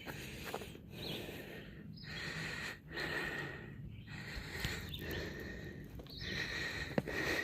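A hiker walking on a soft forest trail, with footsteps and breathing coming about once a second.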